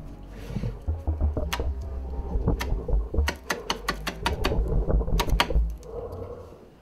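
Chef's knife chopping a cigarette on a plastic cutting board: a series of sharp taps of the blade hitting the board, loosely spaced at first, then in quick runs of several strokes around the middle.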